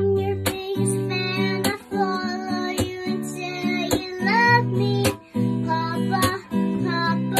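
Background music: a strummed acoustic guitar with a high singing voice.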